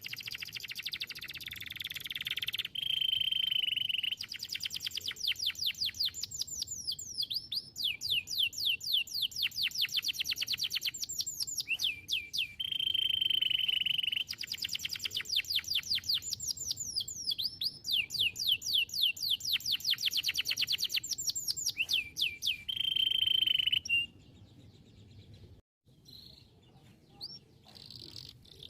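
Domestic canary singing: fast trills of quickly repeated falling notes, broken three times by a held, steady whistled note. The song stops about four seconds before the end, leaving only faint scattered chirps.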